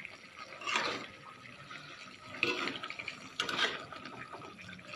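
A utensil stirring and scraping in a steel wok of wet, saucy fish: three short scraping bursts about 1, 2.5 and 3.5 seconds in.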